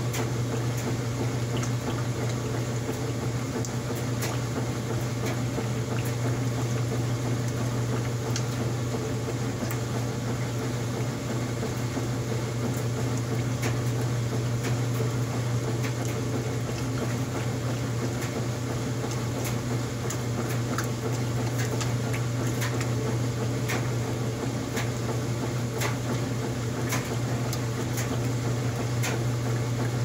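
Old top-loading washing machine agitating an empty tub of soapy water on a rinse cycle: a steady low motor hum under continuous sloshing and splashing, with occasional light clicks.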